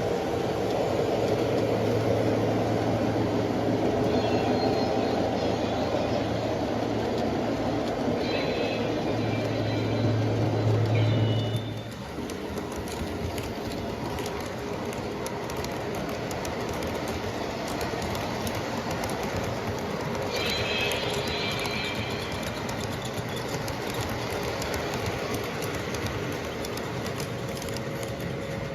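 A model train running on layout track: a steady low hum with rolling noise that drops off about twelve seconds in. Short high-pitched tones come a few times along the way.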